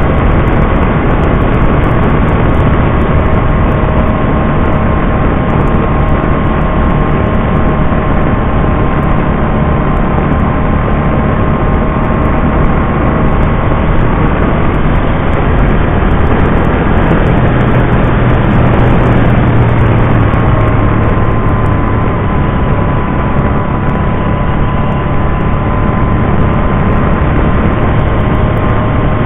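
Can-Am Spyder RT three-wheeled motorcycle running at a steady cruise, its engine note mixed with the steady rush of wind and road noise. The low engine sound grows stronger for a few seconds past the middle, then settles back.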